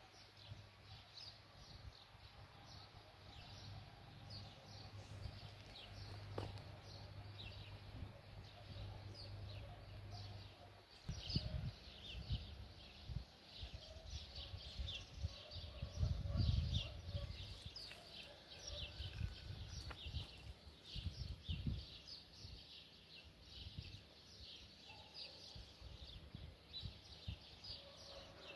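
Small birds chirping in the background: many short, high chirps repeated all through. A steady low hum stops about a third of the way in, and a few low rumbles, the loudest sounds, come around a third, halfway and three quarters through.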